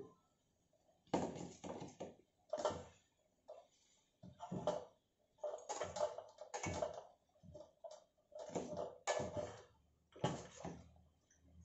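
Metal spoon scraping and knocking against a stainless steel pot while tilapia in coconut milk is stirred and turned. The scrapes and taps are short and irregular, coming about one every second.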